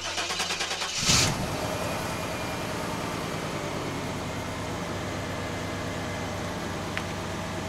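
1995 GMC Yukon's engine cranking rapidly for about a second, catching with a loud surge, then idling steadily. It is being run with the radiator freshly filled, so that the coolant circulates and the air is pushed out of the cooling system.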